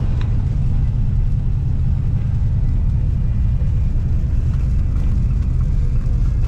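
Steady low rumble of road and engine noise inside a car's cabin while driving on a wet road.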